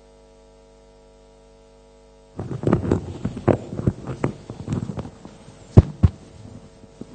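Steady electrical hum that cuts off suddenly about two seconds in, followed by irregular thumps, knocks and rustles of a microphone being handled, with two sharp knocks near the end.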